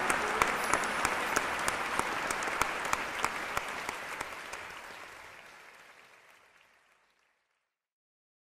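Audience applauding, with a few sharper individual claps standing out; the applause fades away over the second half.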